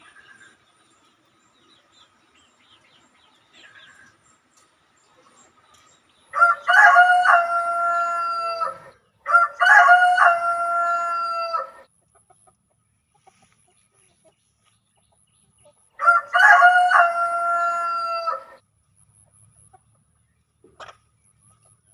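Rooster crowing three times, each crow about two and a half seconds long: two in quick succession, then a third after a pause of about four seconds.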